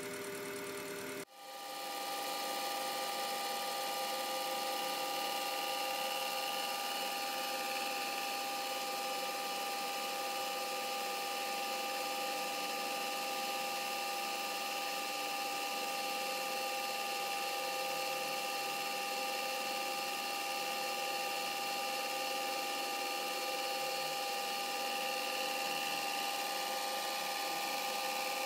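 Metal lathe running at 280 RPM, its four-jaw chuck turning while a 32 mm boring bar with a carbide insert takes a facing cut to skim the chuck's height blocks flat; a steady machine whine with several held tones, briefly cut off about a second in.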